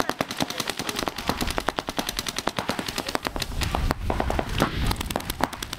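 Several paintball markers firing at once, a dense, rapid rattle of overlapping shots, many a second.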